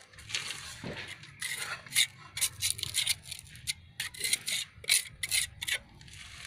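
Steel trowel scraping cement mortar against hollow bricks and the slab, a quick, irregular series of short scrapes.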